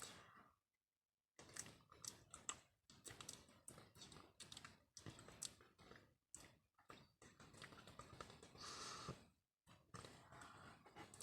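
A paper banknote crinkled and rustled close to the microphone, in quick soft clicks and rustles with short pauses and a longer rustle about nine seconds in.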